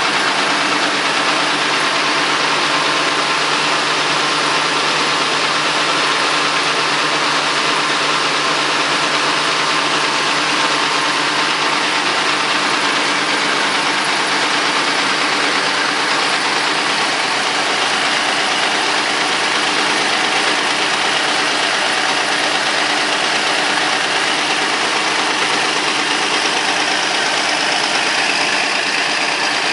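Vintage Caterpillar D13000 diesel engine running steadily at an even speed.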